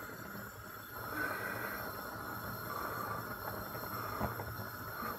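A steel pot of pasta water at a rolling boil on a gas burner, a steady bubbling hiss, along with someone blowing on a hot spoonful of pasta to cool it.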